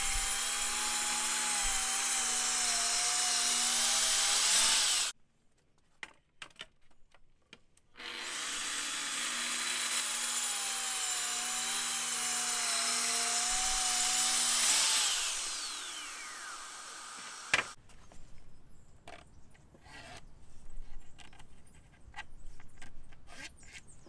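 Festool track saw ripping a sheet of plywood along its guide rail, its motor pitch wavering under load. The saw stops abruptly about five seconds in and starts again about three seconds later. About fifteen seconds in it winds down with a falling whine, and after a sharp click there are light taps and board-handling noises.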